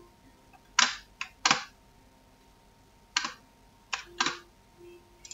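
About six sharp clicks at a computer, irregularly spaced, some in quick pairs: mouse clicks and keys as the flowchart is edited.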